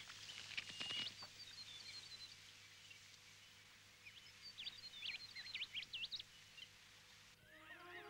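Faint jungle ambience of small birds chirping in quick, high, up-and-down whistles: a few about a second in and a busier run around the middle, over a soft steady hiss.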